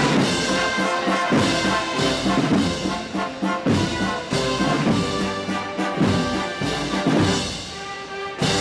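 Brass band playing a slow processional march: trumpets and trombones hold sustained chords over a slow beat that falls a little more than once a second.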